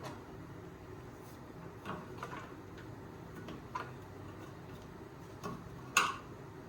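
Scattered faint clicks and small taps of screws being driven in by hand while reassembling a keyboard's action, with one sharper click about six seconds in.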